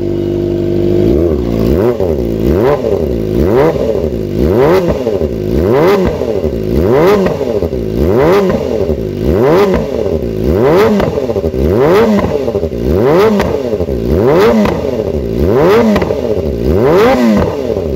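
Kawasaki ZX-25R's 250 cc inline-four, breathing through a LeoVince full-system underbelly exhaust with a short carbon silencer, idles for about a second. It is then blipped again and again in light throttle revs to about 6000 RPM, each a quick rising and falling howl, roughly one a second. The very short silencer makes it loud and raspy ('gacor').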